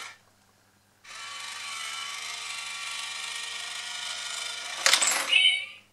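Itazura cat coin bank's small motor whirring steadily for about four seconds as the toy cat comes out for the coin, then a click and a short meow near the end.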